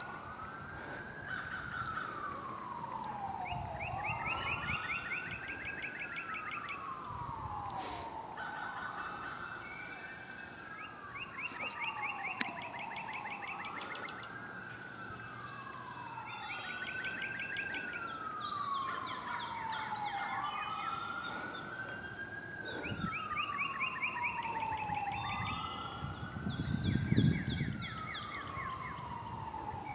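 Emergency vehicle siren on a wail pattern, its pitch rising and falling slowly about once every three to four seconds without a break.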